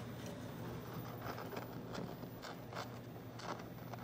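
1949 Westinghouse H-223 tube television running, with a steady low hum and a series of short scratchy crackles, mostly in the second half.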